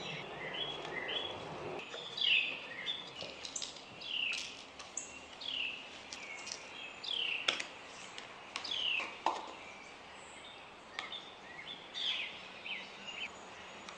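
Birds singing: short falling whistled notes, one every second or so, with a few faint clicks and taps. A low steady background noise stops about two seconds in.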